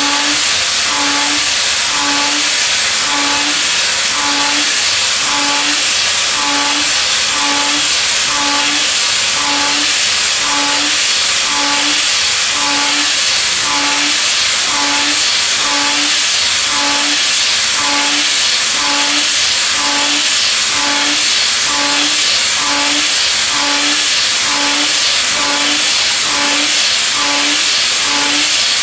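Milling machine running a high-feed milling cut: a steady loud hiss over an evenly pulsing hum, a little under two pulses a second.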